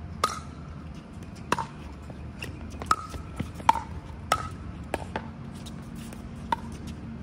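Pickleball paddles striking a plastic pickleball back and forth in a rally: a series of sharp pops with a brief ring, roughly one a second.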